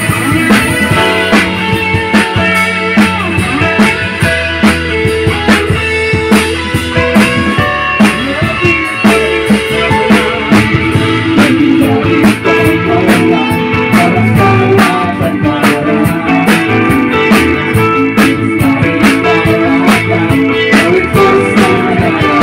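A worship band rehearses a song: an electric guitar and an arranger keyboard play over a steady drum beat.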